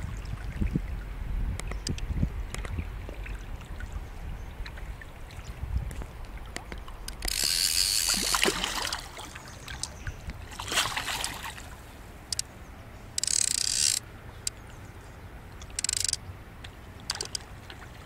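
Fly reel's click-and-pawl ratchet buzzing in several bursts as line runs on or off the spool while a large trout is played: the longest, loudest burst about seven seconds in lasting nearly two seconds, then shorter ones, with small clicks and handling noise between.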